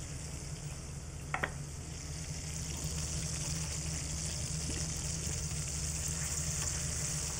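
Flour-dredged chicken pieces sizzling as they brown in oil in stainless steel sauté pans, a steady frying hiss that gets a little louder about three seconds in. A single light knock about a second and a half in, over a steady low hum.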